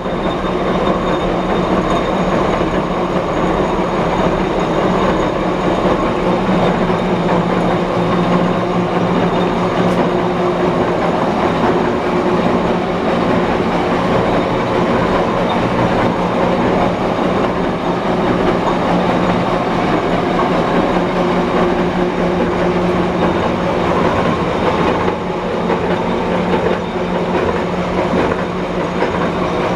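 5D32 gear hobbing machine running, its hob cutting the teeth of a spur gear: a steady dense mechanical clatter over a constant low hum.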